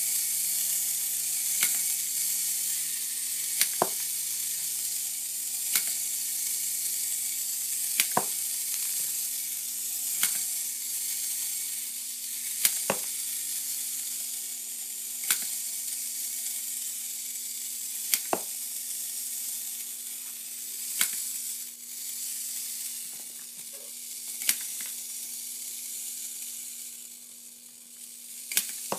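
Clockwork mechanism of a 1950s Fuji tin wind-up football punter toy running with a steady high whir. Its kicking action snaps with a sharp click every two to three seconds, sometimes doubled, and the clicks space out as the spring runs down. The whir fades near the end.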